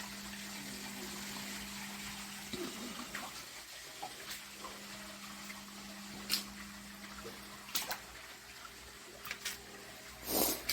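Water running and splashing, with a steady low hum underneath and a few short sharp clicks or splashes scattered through.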